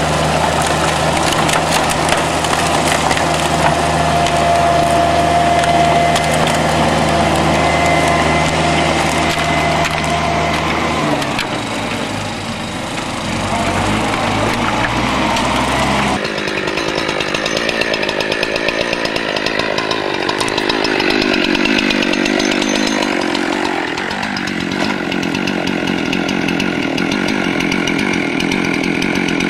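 Gasoline walk-behind lawn mower running steadily as it is pushed through dry grass. After a cut about 16 seconds in, a small engine tool runs instead, revving up and down.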